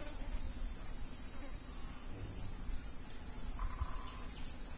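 Steady, high-pitched chorus of insects chirring in the surrounding vegetation.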